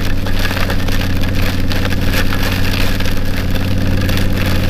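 Yamaha V-Star 1100 Classic's V-twin engine running at a steady cruise, under a dense patter of heavy rain and wind on the camera.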